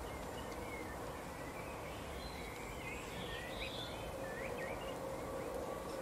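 Small songbirds twittering: a run of quick high chirps and short up-and-down notes, busiest in the middle, over a steady background hiss with a faint hum.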